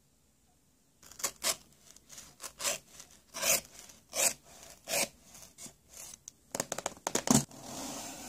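Knife blade cutting through the taped seams of a cardboard mailer box in a series of short scraping strokes. Near the end comes a quick run of clicks and taps, then a steady cardboard rustle as the lid flaps are lifted open.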